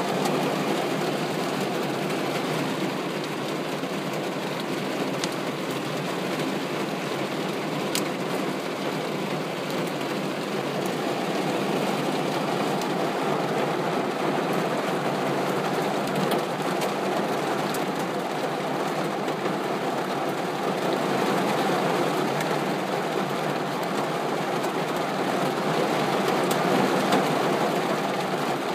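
Heavy storm rain pouring down, a steady dense hiss, with a couple of sharp ticks.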